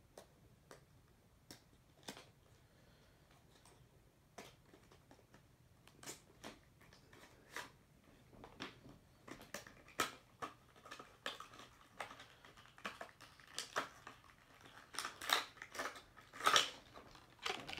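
Diecast car's box packaging being torn and pulled open by hand: scattered clicks, tears and crinkles, sparse at first and growing busier and louder from about six seconds in.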